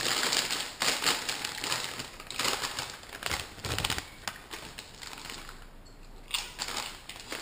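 Plastic snack bag of pork rinds being opened and handled, crinkling and crackling. Near the end the crackling thins to a few crunches as a pork rind is bitten.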